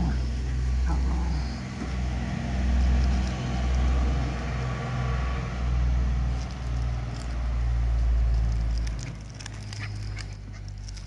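Loud, uneven low rumble on the camera's microphone, swelling and dipping and dying down about nine seconds in, with a few faint clicks near the end.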